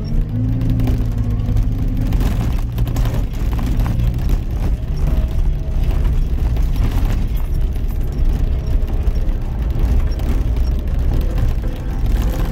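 Caterpillar 289 skid steer's diesel engine running steadily as it works, with scattered knocks and clatter.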